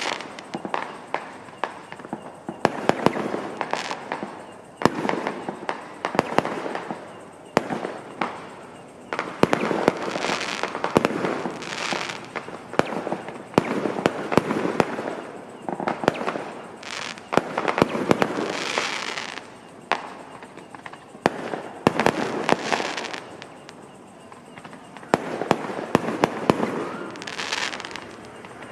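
Fireworks going off in rapid succession: many sharp bangs close together, some followed by a hissing crackle that trails on for about a second.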